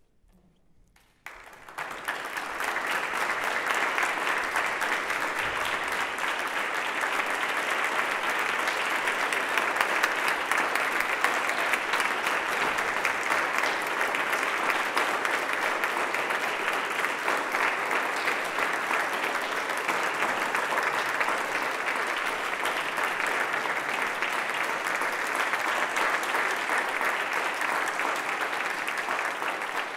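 A small audience applauding. The clapping breaks out suddenly about a second in, after near silence, and then goes on steadily.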